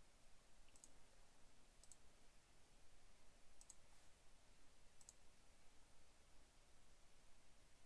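Near silence broken by four faint, sharp computer mouse clicks, irregularly spaced a second or more apart.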